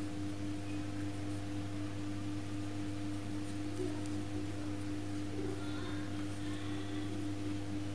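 Steady background hum with one clear unchanging tone over a low drone, and no other distinct sound.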